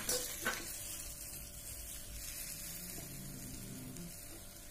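Potato, cauliflower and pea curry sizzling softly in a pan on the stove as it is stirred with a wooden spatula, the gravy just thinned with a bowl of water. There are two light knocks near the start.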